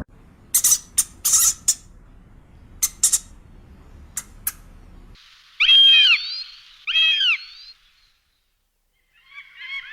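Bird calls: a run of short, sharp, high chirps, then two loud calls about a second apart, each holding one pitch and dropping at the end, and a brief twittering near the end.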